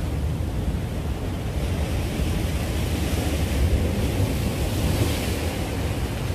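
Sea surf washing against breakwater rocks, with wind buffeting the microphone as a constant low rumble; a wave's hiss swells up about two seconds in and fades near the end.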